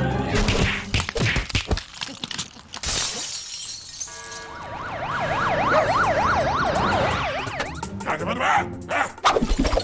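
Cartoon sound effects: a glass window shattering about three seconds in, then an alarm siren wailing quickly up and down, about three times a second, for roughly three seconds. Near the end a character shouts over sharp hits, with music under it all.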